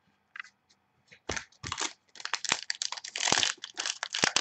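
Foil trading-card pack crinkling in the hands as it is opened, starting about a second in as a dense, irregular crackle.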